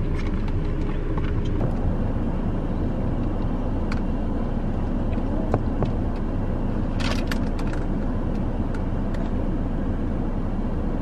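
Steady low rumble of a car heard from inside its cabin, with a few faint clicks and a brief rustle about seven seconds in.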